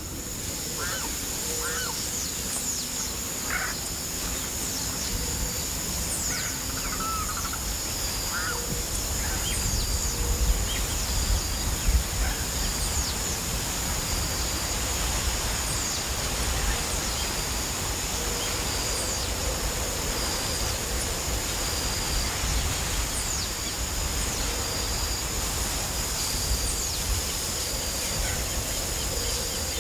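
Outdoor ambience: scattered short bird calls, mostly in the first third, over a steady high-pitched hum, a quick regular high-pitched pulsing and a low rumble.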